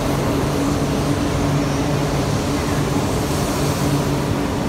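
Double-decker Shinkansen bullet train running past a station platform: loud, steady rushing noise with a low hum underneath.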